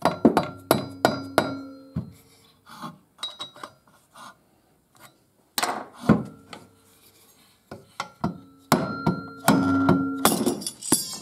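Soft-faced mallet blows on a two-stroke engine's crankshaft and flywheel, struck to knock the stuck flywheel off the crankshaft. The blows come in bunches, each hit giving a short metallic ring.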